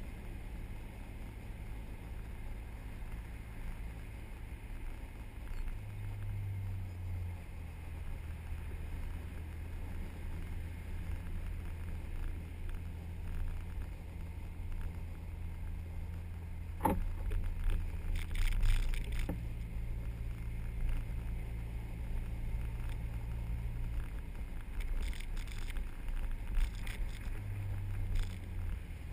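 SUV engine running as it drives slowly over beach sand, its note stepping up and down a few times. A sharp knock comes about halfway through, followed by a few brief clatters.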